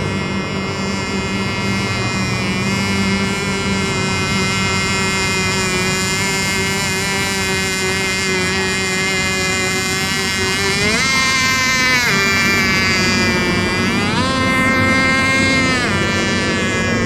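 Radio-controlled racing boats running on the water: a steady, high-pitched engine whine with many overtones. Twice in the second half the pitch rises sharply as a boat speeds up, holds briefly, then drops back.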